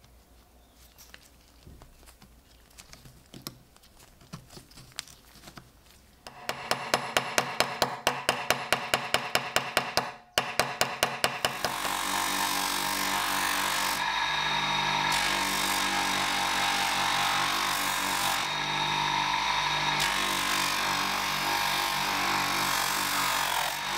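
Workshop tool work: a hand tool pushed in quick regular strokes, about three a second, then a power tool starts about halfway in and runs steadily, its pitch and load shifting a few times.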